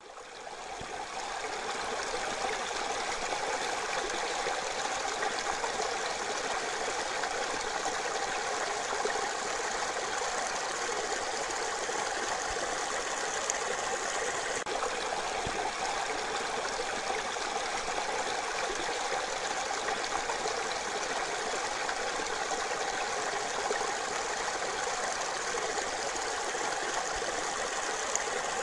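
Mountain torrent rushing steadily, fading in over the first couple of seconds.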